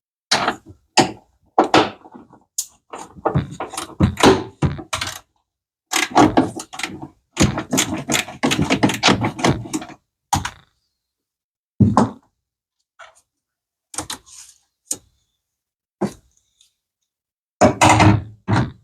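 Hand tools knocking and clanking on metal in a truck's engine bay: a string of irregular thunks and clicks, with a long run of quick clatter in the middle and short pauses between.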